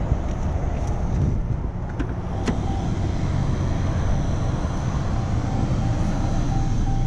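Driver's door of a 2015 Chrysler 200 opening with a click or two about two seconds in, followed by a faint, evenly repeating warning chime, over a steady low rumble.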